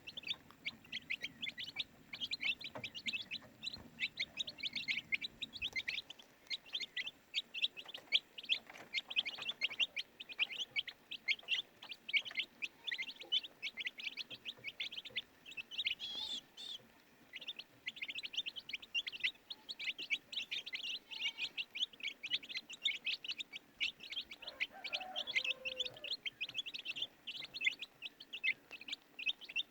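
A group of baby chicks peeping without pause, a dense stream of short, high-pitched chirps. One louder, higher peep comes about halfway through, and a brief lower call comes late on.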